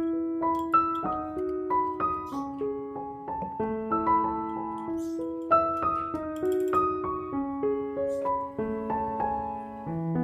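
Background piano music: a gentle melody of single notes moving about twice a second over sustained lower notes.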